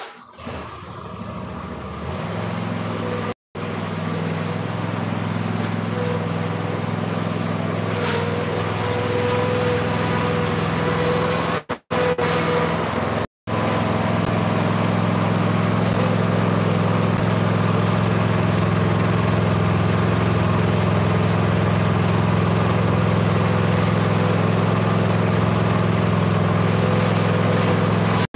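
Cub Cadet ZT1 zero-turn mower engine running steadily as the mower is driven up onto a trailer. It settles into an even hum about two seconds in, with three brief dropouts.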